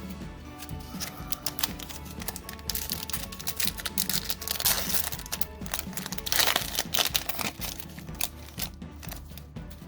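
Foil wrapper of a Pokémon Evolutions booster pack crinkling and being torn open, with clicky handling noises and two louder bursts of crackle near the middle. Background music plays underneath.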